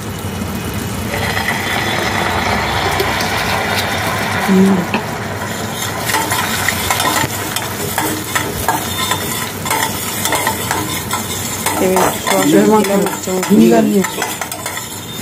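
Honey with chopped ginger, garlic and green chilli bubbling and sizzling in hot oil in a stainless steel kadai, stirred and scraped with a long metal spatula. The sizzle is strongest in the first few seconds; after that the spatula's scraping and clicking against the pan stands out, with a few short pitched sounds near the end.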